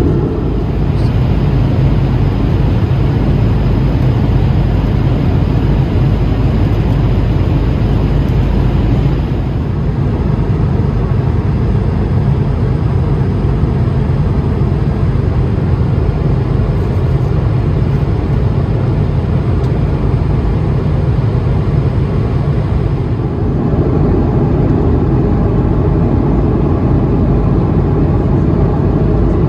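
Steady cabin noise of an Airbus A220-300 in flight: a low, even roar of airflow and its Pratt & Whitney PW1500G geared turbofans, heard from a window seat inside the cabin.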